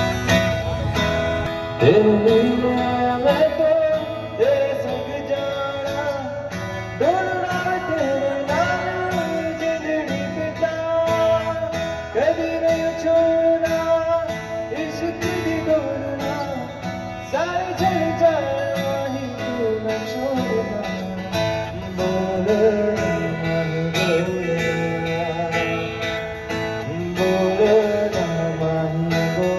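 Live band music: a strummed acoustic guitar with a man singing at a microphone, over a steady beat. The singing comes in about two seconds in.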